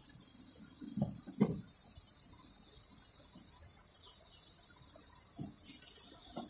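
Steady high hiss, with two soft knocks about a second in and two fainter ones near the end, from hands and a soldering iron at work on an alternator's carbon brush holder held in a vise.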